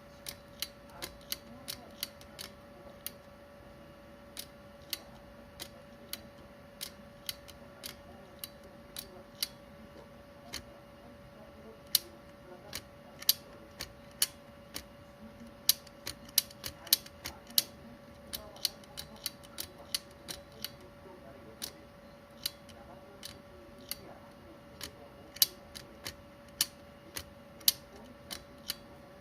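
Irregular sharp clicks and taps, one to three a second and uneven in strength, over a faint steady hum.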